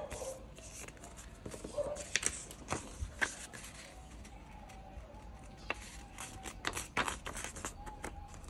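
Sheets of paper being handled and folded in half by hand: paper rustling and crinkling, with scattered sharp ticks and taps.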